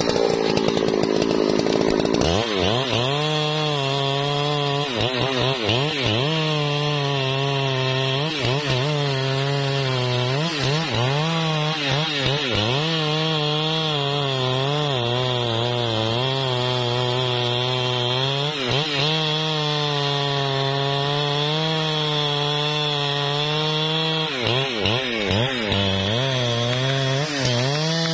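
Husqvarna 3120 XP chainsaw's big single-cylinder two-stroke engine at full throttle with the bar cutting into the trunk of a trembesi (rain tree) being felled. The engine note sags and recovers again and again as the chain bites into the wood.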